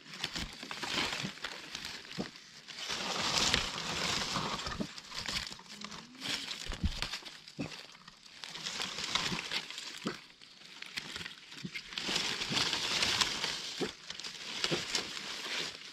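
Leaf litter on the forest floor rustling and crackling in several swells as it is disturbed, with scattered sharp snaps and knocks.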